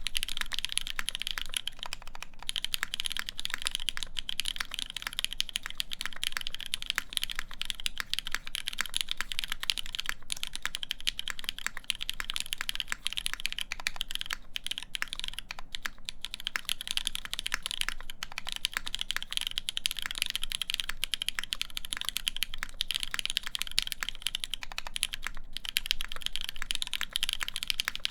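Continuous fast typing on an Eagle v3 custom mechanical keyboard with lubed linear Cherry MX Black switches, a polycarbonate plate and Cherry-profile keycaps: a dense, even stream of keystroke clacks with a few brief breaks.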